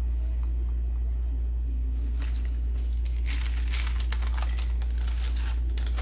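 Crinkly rustling of something light being handled, in a run of short bursts from about two seconds in, over a steady low hum.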